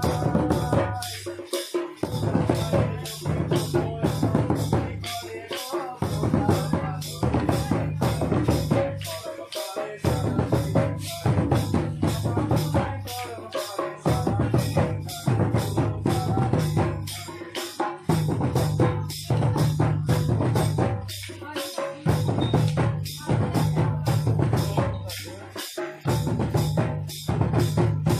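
Folk drums played for a dance: a rope-laced barrel drum and a tall tapered drum beaten with a stick, playing a steady, quick rhythm. The phrase repeats about every four seconds, with a short break in the low drum sound each time.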